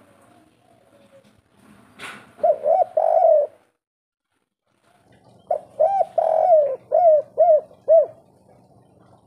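Spotted dove (tekukur) cooing in two phrases, the 'kuk 3' song that keepers look for: first a short run of three coos, then after a short pause a longer run of six coos, with one drawn-out coo among the short ones. A brief click comes just before the first phrase.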